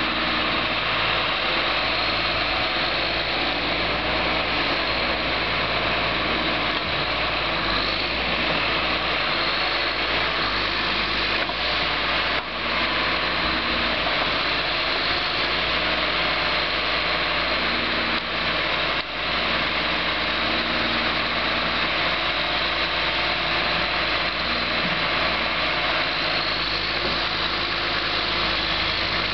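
John Deere 710D backhoe loader's diesel engine running steadily as the backhoe arm and thumb lift and swing logs, with two brief dips in the sound partway through.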